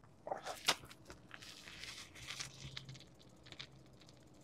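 Faint crunching on gravel and a few sharp clicks, most of them within the first second, as a bicycle is handled and mounted on a gravel path.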